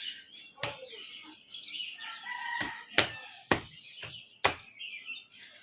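Hands striking the head in a tapping massage: about five sharp slaps at uneven intervals. Birds call faintly in the background.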